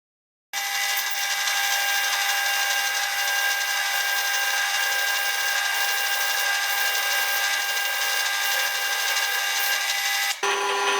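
A small power tool running steadily at high speed, a whine made of many fixed tones. It starts abruptly about half a second in, and near the end it cuts out for a moment and comes back at a different pitch.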